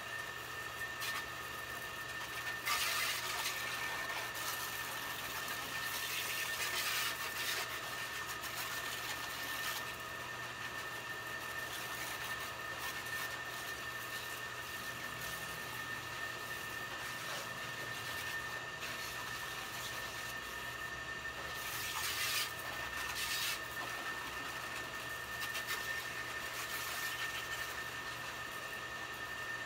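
Water spraying from a hose nozzle in several short hissing bursts, over a steady hum with a thin high-pitched whine.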